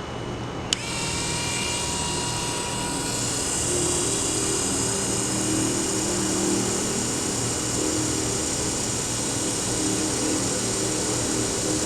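Lego Power Functions electric motor switched on with a sharp click just under a second in, then running with a steady whine through the crane's plastic gearing.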